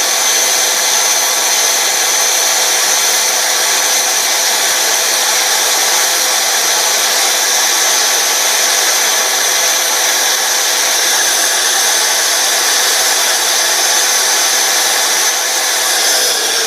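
Electric belt sander running steadily with a high whine, held lightly against the trimmed edge of a helmet shell to smooth it. It begins to wind down at the very end.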